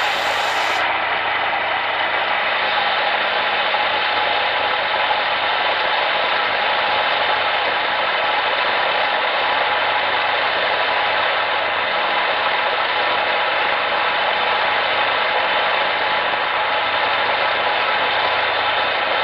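Steady, loud cabin noise of a CH-47 Chinook tandem-rotor helicopter: turbine and gearbox whine with several steady tones over a dense rush of rotor and engine noise, heard from inside with the rear ramp open.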